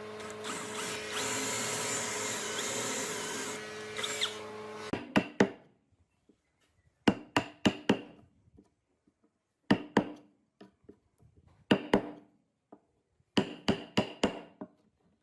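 A power tool runs steadily for about five seconds and then stops. Then come sharp hammer-like knocks on wood, in five quick groups of three or four blows, with short pauses between the groups.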